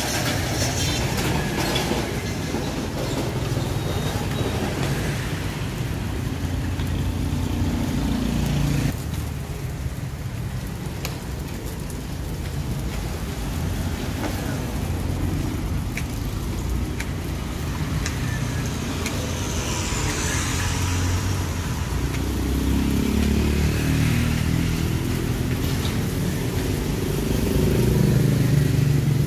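Passing road traffic: motor vehicle engines humming as they go by, swelling and fading twice and loudest near the end.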